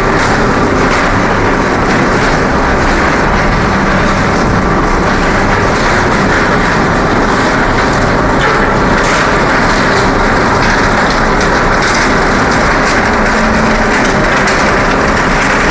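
Aluminum dross processing machinery running: a loud, steady industrial rumble with a rattling clatter and sharp metallic clicks, the clicks coming more often in the second half.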